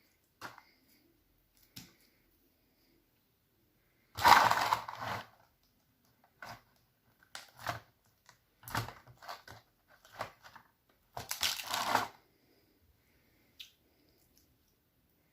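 Slime being squeezed and worked by hand in irregular bursts of a second or less. The loudest and longest come about a third of the way in and again about three-quarters of the way through.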